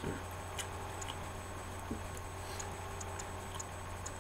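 A few faint, irregular light clicks over a steady low hum.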